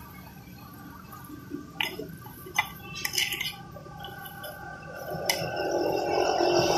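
A metal spoon clinking and scraping against a metal pan of hot frying oil: several separate sharp clinks, spread over a few seconds.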